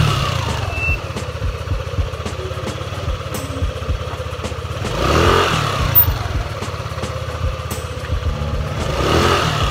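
Yamaha Aerox 155 scooter's single-cylinder four-stroke engine running on a freshly fitted iridium spark plug, idling steadily with three short throttle blips: near the start, about five seconds in and near the end.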